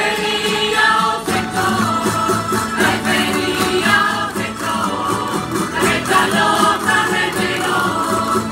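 Spanish folk music from a Murcian coros y danzas group: several voices singing together over a rondalla of plucked string instruments, with a steady rhythmic beat, accompanying a folk dance.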